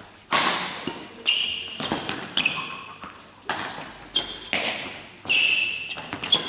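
Badminton rally: rackets striking the shuttlecock and feet landing, sharp smacks about once a second that echo in the hall, with short high squeaks of court shoes on the floor.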